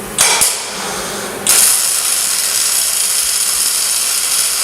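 Gasless flux-core MIG welder striking an arc: two short sputters, then about a second and a half in a steady loud hiss as the weld runs.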